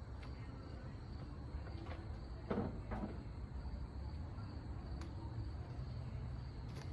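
Outdoor ambience: a steady high insect drone over a low wind rumble, with two brief scuffs about two and a half and three seconds in.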